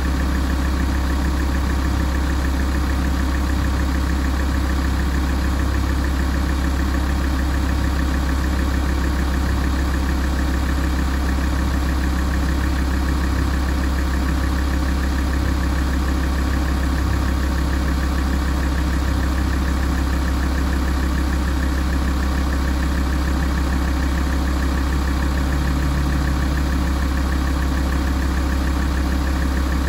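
Alfa Romeo 166 2.4 JTDm five-cylinder turbodiesel idling steadily while it warms up for a service test.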